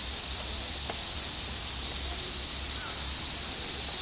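A steady high hiss over a low rumble, with a faint tick about a second in.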